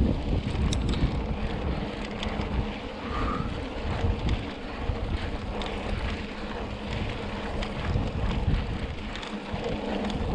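Wind buffeting the microphone of a riding mountain biker, over the steady noise of the bike rolling along a dirt road, with scattered small ticks.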